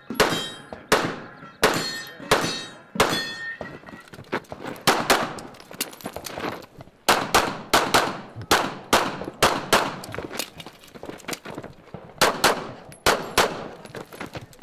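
Pistol shots fired in quick strings, about two to three a second, with short breaks near the middle and again later on. Several of the early shots are followed by a brief metallic ringing.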